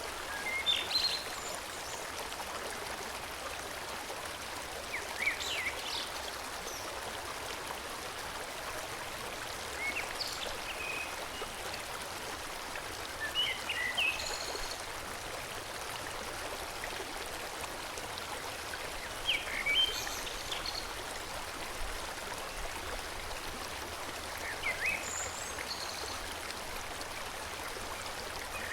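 Forest stream flowing steadily, with short bird chirps every few seconds over the water.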